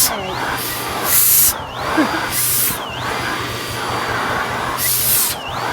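Vacuum cleaner running as its nozzle is stroked over a cat's coat to suck up shed fur: a steady motor whine, with the hiss of the airflow surging and easing several times as the nozzle moves and seals against the fur.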